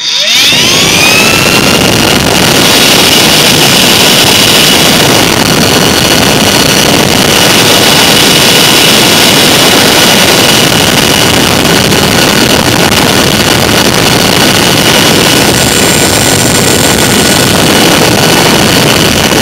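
Small DC motor from a Dirt Devil broom vacuum, run bare on a 12-volt power supply: it spins up within half a second and runs loud and steady with a high whine, showing that the motor works.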